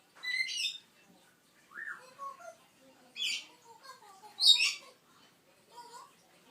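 Baby African grey parrot chick squawking three times in short bursts, the last about four and a half seconds in the loudest, with softer, lower gliding calls in between.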